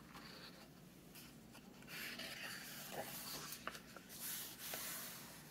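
A picture book's page being turned and smoothed flat by hand: soft paper rustling and sliding from about two seconds in, with a few light clicks.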